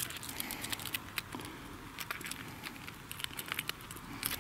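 Irregular light clicks and rustling, as of hands handling things close to the microphone.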